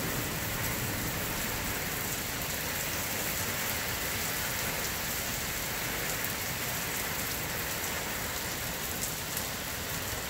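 Steady rain from a strong thunderstorm: an even hiss with the ticks of individual drops.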